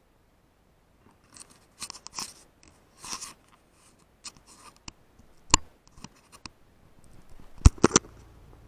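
Scattered short rustles and crunches with a few sharp clicks, the loudest click about five and a half seconds in and three quick clicks near the end.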